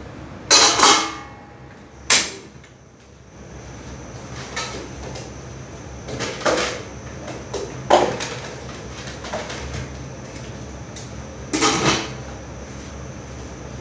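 Scattered knocks and clatters of kitchenware and cupboard doors being handled, about half a dozen, with the loudest near the start and again near the end, over a steady low hum.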